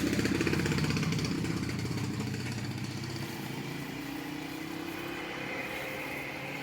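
A small engine running steadily. It grows fainter over the first few seconds, then holds at a lower level.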